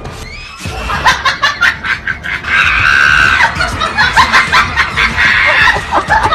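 People laughing in quick, loud bursts, with a high shriek held for about a second partway through, starting about half a second in.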